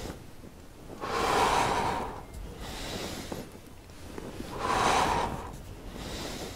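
A man's deep, audible breaths during a strenuous seated abdominal exercise: two loud, hissy breaths about a second long, some three and a half seconds apart, with quieter breathing between.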